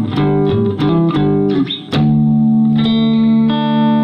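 Hollow-body Harmony Stratotone replica electric guitar with gold foil pickups, tuned to DADGAD, being played: a run of quickly picked notes, then about two seconds in a chord struck and left ringing.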